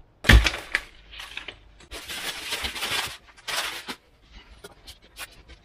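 A knock on the tabletop, then several scratchy strokes of a snap-off utility knife cutting through 6 mm Depron foam sheet, the longest about a second.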